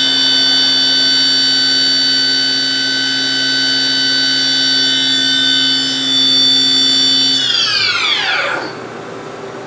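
CNC vertical machining center spindle (DMG Mori Dura Vertical 635 Eco) running at 8,000 RPM with a steady high-pitched whine. About seven and a half seconds in it winds down, the whine falling in pitch until it stops, leaving a quieter steady machine hum.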